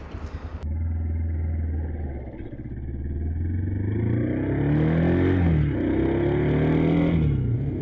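Kawasaki KLR650's single-cylinder engine pulling away and accelerating. The revs climb and drop back twice as it shifts up through the gears.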